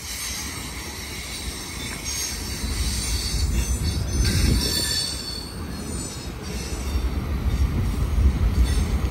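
Freight train of auto rack cars rolling past, with a steady low rumble. The wheels squeal in thin, high tones that come and go, strongest around the middle, and the rumble grows louder near the end.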